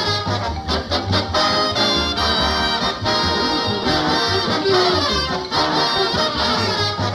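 Lively cartoon-style music on brass instruments over a steady, bouncing bass beat.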